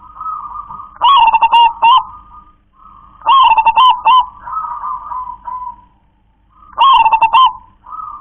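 A local zebra dove (perkutut) singing its cooing song, the type written as klar-ke-tek-kong. Three loud rolling phrases come about a second in, at about three seconds and near the end, with softer cooing between them.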